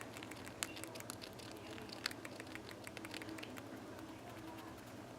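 Pet rat bruxing: quick, irregular clicking of its teeth grinding together, thickest over the first few seconds and thinning out near the end. Bruxing like this is typical of a relaxed, content rat.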